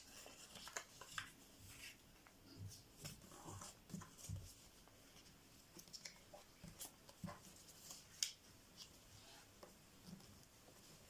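Faint rustles and small scattered taps of a sheet of white paper being folded and creased by hand.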